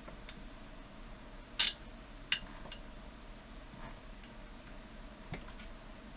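A few scattered sharp clicks and taps of small parts being handled while a circuit board's edge connector is refitted inside a DAB radio, the loudest pair about a second and a half and two seconds in.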